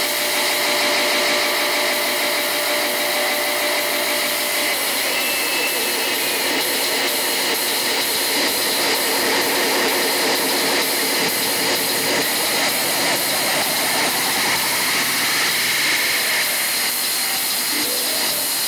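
Loud techno over a club sound system, in a breakdown with the kick and bass filtered out. What is left is a dense hissing noise sweep that slowly rises in pitch in the middle, with a high tick about twice a second.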